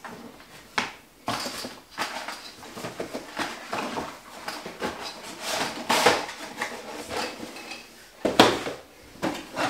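Small model railway pieces and kit boxes being handled and rummaged out of a cardboard box: irregular clicks, rattles and rustling, with a sharper knock near the end as a boxed kit is set on the table.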